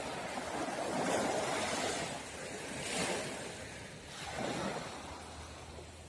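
Small sea waves washing onto the beach, swelling and falling away about three times.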